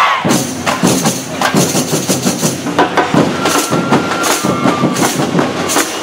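Samba percussion band drumming a fast, steady rhythm.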